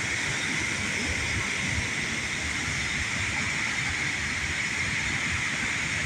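Steady rushing noise of a large waterfall, even and unbroken.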